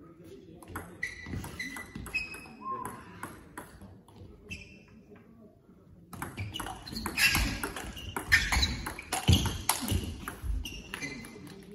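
Table tennis rally: the ball clicking sharply off the paddles and the table in quick alternation, the strokes louder and harder from about six seconds in.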